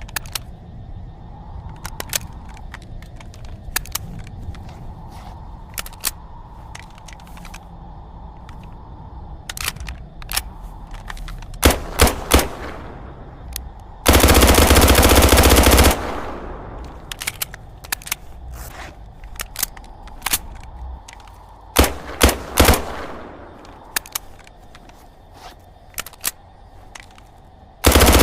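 MP5K 9mm submachine gun firing: scattered clicks over a low hum, then a few single shots, a continuous full-auto burst of about two seconds near the middle, another cluster of shots, and a second full-auto burst starting near the end.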